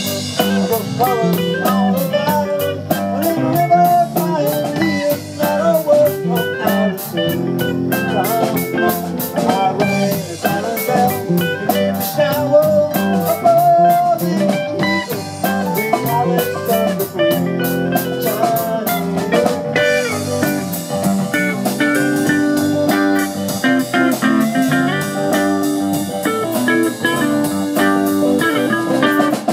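Live rock band playing an instrumental passage: two electric guitars, electric bass and a drum kit, with the drummer keeping a fast cymbal beat that eases off about twenty seconds in.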